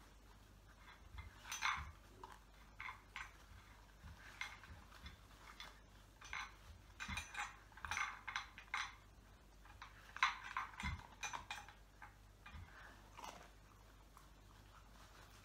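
A dog nosing at a muffin tin game, lifting and shifting the toys in the cups to reach treats: the tin and toys give irregular clinks and rattles, in bursts with short pauses between.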